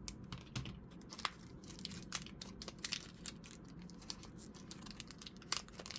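Foil wrapper of a Pokémon booster pack crinkling and tearing as the pack is opened, in irregular small crackles and clicks.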